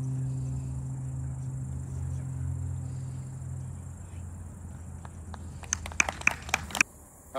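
Crickets chirring steadily at dusk, under a low held note that fades out about halfway through; near the end comes a quick run of sharp clicks.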